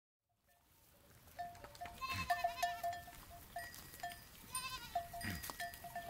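Goat bleating twice, a wavering call about two seconds in and again near the end, over a run of short, repeated high notes.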